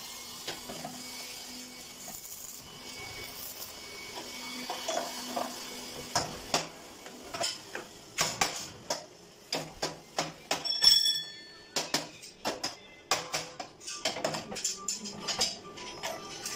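Cut steel pipes and rods clinking and clattering against one another as they are picked through by hand: a string of sharp metallic knocks, thicker in the second half, with one piece ringing briefly.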